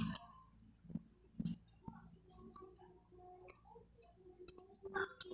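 Scattered sharp clicks and wet mouth smacks of close-up chewing, with lettuce leaves torn and pinched by hand. A faint steady high tone runs underneath.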